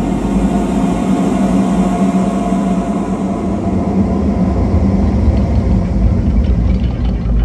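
Steady, dense low mechanical drone with a strong low hum, a sound-design machine rumble.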